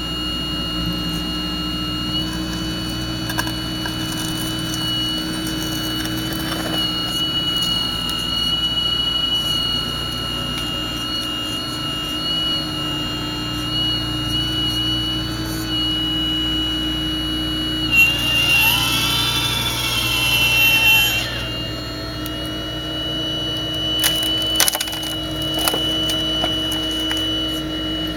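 A radio-controlled model Hitachi 870 excavator working: a steady mechanical whine from its drive, with a whine that rises and falls for about three seconds two-thirds of the way through as it works, and a few sharp clicks near the end.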